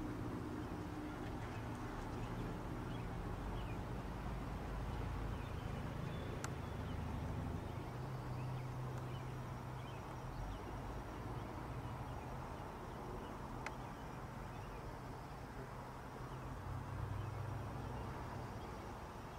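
Distant jet airliner passing high overhead: a steady low engine rumble that swells and fades slowly, with faint bird chirps and two sharp clicks.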